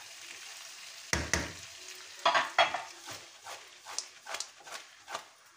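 Chana dal and bitter gourd sizzling in a non-stick wok while a wooden spatula stirs and the pan is shaken. There is a sharp knock about a second in, scraping and clattering a little after two seconds, then lighter knocks as the sizzle fades toward the end.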